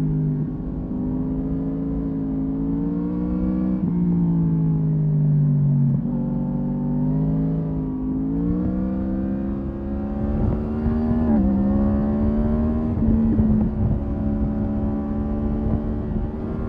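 Yamaha MT-10's crossplane inline-four engine under way, its pitch climbing on the throttle and sinking as it rolls off, with a sudden drop at a gear change about eleven seconds in. Wind rumble on the microphone runs underneath.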